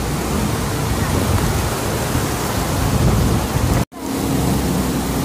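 Steady rushing noise of floodwater flowing across a street. The sound drops out for an instant about four seconds in.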